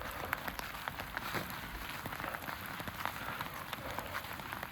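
Steady rain falling, with many separate drops ticking sharply amid the even hiss.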